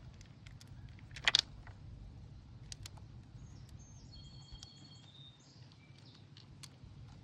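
Light clicks and ticks of wire terminals being worked off outboard switch boxes, with one sharper click about a second in, over a low steady hum.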